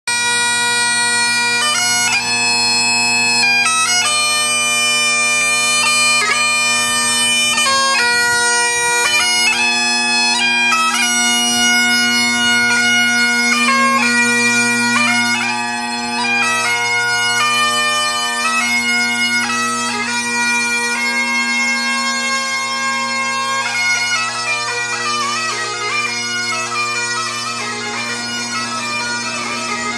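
Great Highland bagpipe playing a tune over its steady drones. In the second half it grows a little fainter, and near the end the notes blur and echo as it is played inside a railway tunnel.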